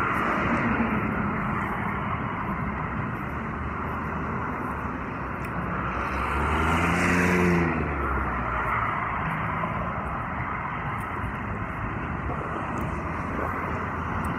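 Road traffic noise, with one motor vehicle passing loudest about halfway through, its engine note swelling and fading.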